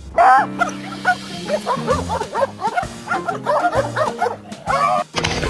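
A dog vocalizing in a long run of short, rising-and-falling 'woo-woo' howling calls, over background music with steady low tones. The calls stop briefly just before the end.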